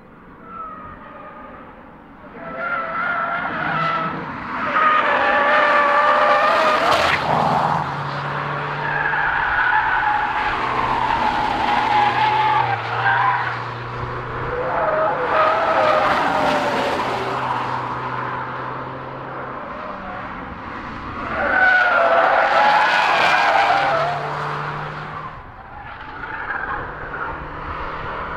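Cars driven hard on a track, the camouflaged MINI Clubman prototype among them: engines revving up and falling away through gear changes as they pass, loudest about 5, 16 and 22 seconds in.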